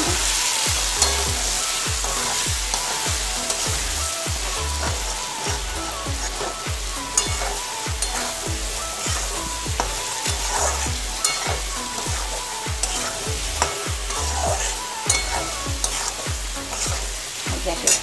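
Metal spatula stirring and scraping diced potatoes, tomatoes and spices around a metal kadai, with oil sizzling throughout and frequent sharp clicks of the spatula against the pan: the masala being fried down.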